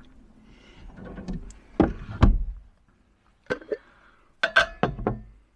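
Kitchenware being handled: a string of sharp knocks and clinks from a glass jar and spoon, the loudest two with a dull thud about two seconds in, and a quick run of ringing clinks near the end.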